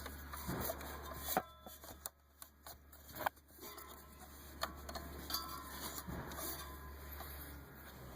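Hand work on an engine's serpentine belt: scattered clicks, knocks and rubbing as the rubber belt is worked behind and around the pulleys, over a low steady hum.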